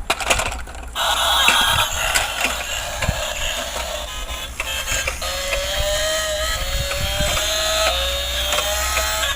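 Battery-powered toy vehicle running, its small motor and gears whirring and clicking, with an electronic tune from its small built-in speaker, a repeated rising tone.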